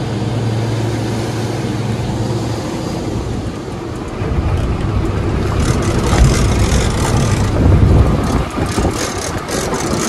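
A boat's engine drones steadily under the rush of its wake for the first few seconds. From about four seconds in, wind buffets the microphone and water splashes as a hooked fish is fought at the stern.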